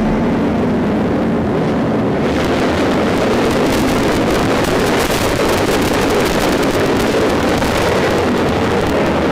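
Motorcycle riding noise heard through an action camera's microphone: wind buffeting the mic over the bike's engine and road noise, with the hiss growing brighter about two seconds in.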